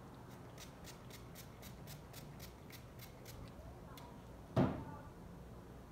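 Trigger spray bottle misting water onto hair: about a dozen quick squirts at roughly four a second. Then a single loud knock about four and a half seconds in.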